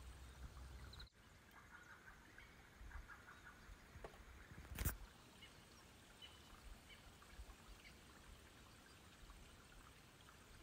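Near silence: faint open-air ambience with a few soft, short bird chirps, and one sharp click about five seconds in.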